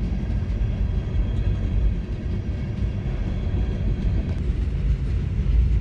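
Freight cars of a passing freight train rolling by, a steady low rumble of wheels on rail.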